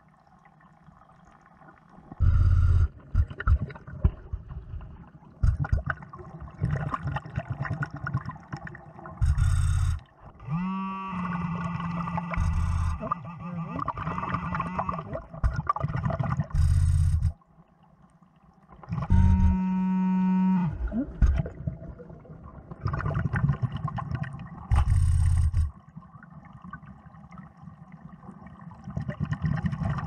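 A diver breathing underwater through a surface-supplied (Nemo hookah) regulator: loud bursts of exhaled bubbles come about every seven seconds. Twice, a steady buzzing tone with a slight rising start sounds for about two seconds between breaths.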